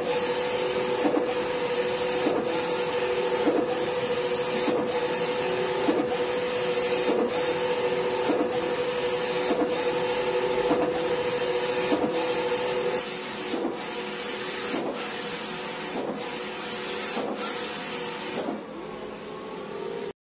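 Eco-solvent wide-format printer running, with a steady whine and a regular click a little more than once a second. The whine fades out about two-thirds of the way through while the clicks go on.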